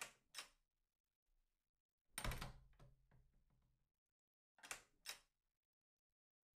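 Quiet room broken by faint knocks and thuds: a thump about two seconds in that rings on for over a second, and two quick knocks about half a second apart near the middle.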